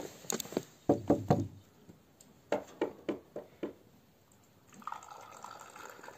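A run of short knocks, then from about five seconds in a steady sound of liquid being poured.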